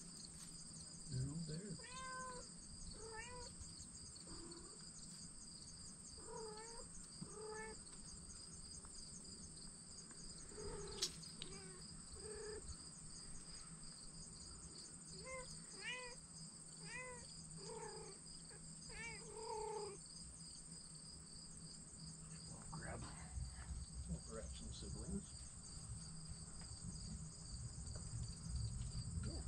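Kittens mewing, about a dozen short rising-and-falling cries, mostly in the first twenty seconds, over the steady fast-pulsing chirping of crickets.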